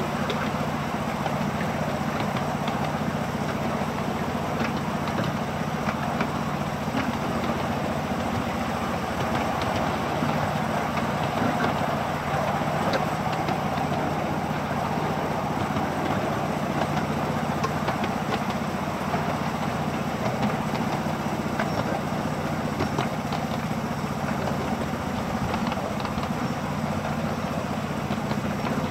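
A 7¼-inch gauge miniature railway train under way: the locomotive's engine runs at a steady hum over a constant running rumble, with scattered light clicks.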